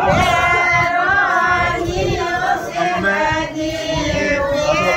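High voices, women's by the tags, singing together in long held notes that glide gently up and down.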